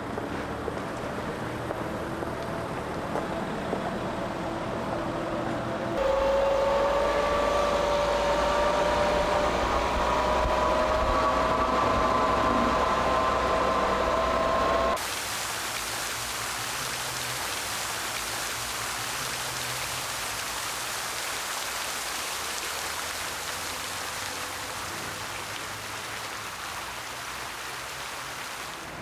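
Electric motor of the BMW C1-E scooter whining in several tones that rise slowly together as it accelerates, over street traffic noise. After a hard cut about fifteen seconds in it gives way to a steady, even hiss.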